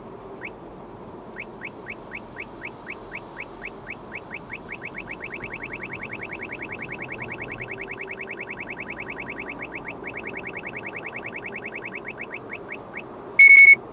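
Uniden R7 radar detector's Ka-band police radar alert: short rising chirps that speed up from about four a second to a rapid stream as the radar signal strengthens, then slow again and stop. About 13 seconds in comes a single loud beep, over steady road noise.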